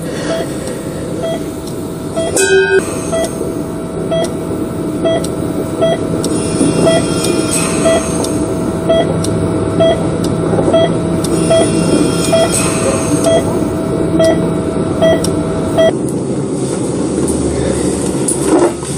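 Bedside patient monitor giving a short heart-rate beep about every three-quarters of a second, over a steady rushing hum. The beeping stops suddenly about sixteen seconds in.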